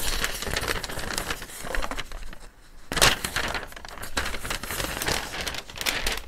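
Sheet of newspaper rustling and crinkling as it is handled and unfolded, with a brief lull a little past two seconds in before the rustling picks up again.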